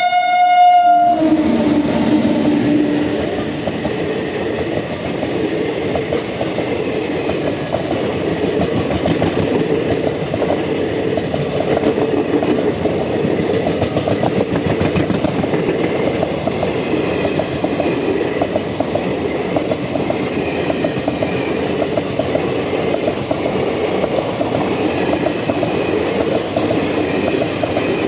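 A train passing at speed close by. Its horn sounds at the start and cuts off about a second in, followed by a steady rattling clatter of wheels on the rails.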